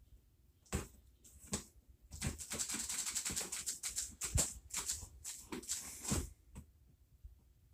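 A blade scraping and slicing along packing tape on a cardboard shipping box: two clicks in the first second and a half, then about four seconds of rapid scratchy scraping that stops about six seconds in.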